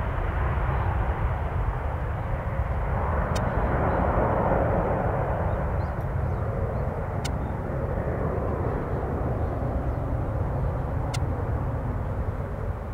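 Jet noise from a departing Boeing 737-800's CFM56-7B turbofans: a steady rumble that swells about three to six seconds in and eases slightly near the end.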